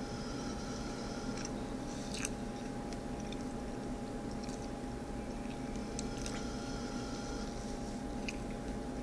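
A person chewing a mouthful of donut close to the microphone, with scattered soft mouth clicks, over a steady room hum with a constant thin electrical tone.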